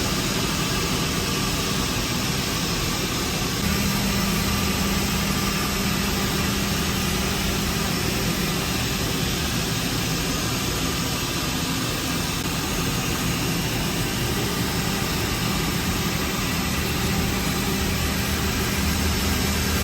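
CNC milling machine running steadily, a constant mechanical hum under an even hiss, which cuts off abruptly at the end.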